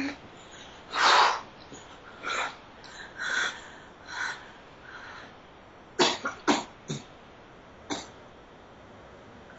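A woman coughing in short bursts over a Skype call's audio: one loud cough about a second in, a run of softer ones about once a second, then a quick cluster of sharp coughs around six seconds in and a last one near the end.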